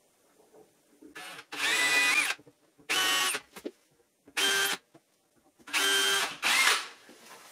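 Power drill-driver driving screws into metal angle brackets under a worktop, in a series of short trigger runs of under a second each, its motor whine shifting in pitch within the runs.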